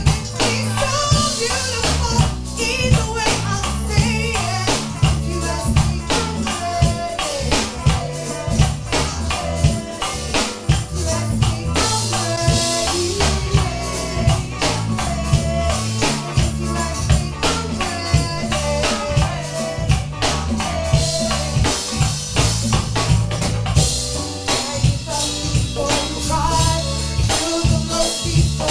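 Background music: a song with a steady drum beat and a bass line.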